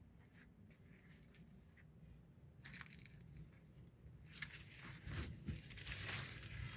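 Dry crackling and rustling in irregular bursts, sparse at first and busier and louder from about four seconds in.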